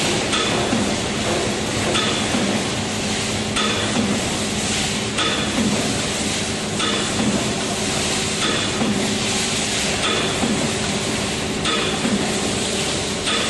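Aluminium foil tray production press running in automatic cycle: a steady machine hum with a short stroke sound repeating evenly about every second and a half.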